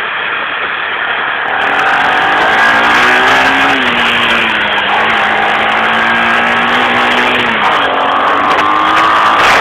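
ATV engine running while riding, its pitch rising about two seconds in, holding steady, then rising again near the end, with a rushing noise of wind and motion over it.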